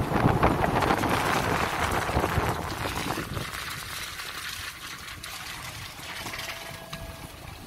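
Rushing noise of a moving vehicle on a wet road, wind buffeting the microphone over the tyre hiss. It is louder for about the first three seconds and then drops to a quieter low rumble.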